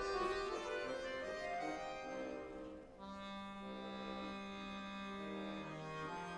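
Bayans (Russian button accordions) playing together: a run of changing notes, a brief break about three seconds in, then a held chord over a sustained low note.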